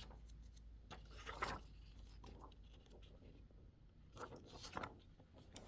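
Faint rustling and sliding of heat transfer sheets and packaging being handled, a few short scrapes over quiet room tone.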